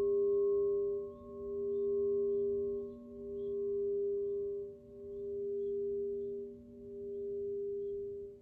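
Alchemical crystal singing bowls ringing on after being struck, several steady tones held together. The strongest tone swells and fades in a slow pulse about every two seconds. Faint high tinkling of Koshi chimes sounds above them.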